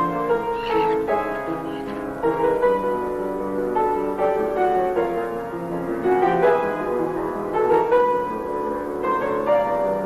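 Chamber-ensemble film score with the piano to the fore, playing a run of notes that change every fraction of a second.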